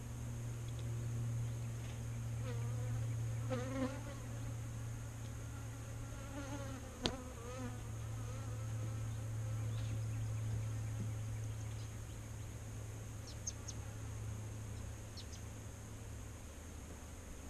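Honeybees buzzing in flight around the microphone, with a steady low hum and a few bees passing close with a wavering buzz. There is a single sharp click about seven seconds in.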